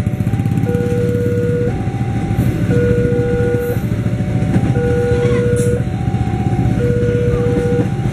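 Electronic level-crossing warning bell sounding a repeating chime, about a second on and a second off, over the steady rumble and clatter of passenger coaches rolling past on the rails.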